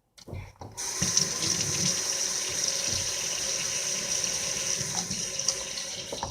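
Water running from a tap into a sink. It starts about a second in and runs steadily.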